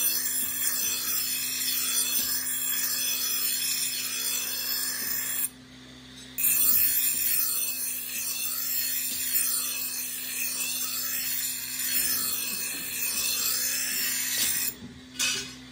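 A bench grinder's abrasive wheel grinding a steel cleaver blade, a steady high hissing rasp over the motor's constant hum. The grinding stops for about a second some five and a half seconds in as the blade is lifted, then resumes, and breaks off again briefly near the end.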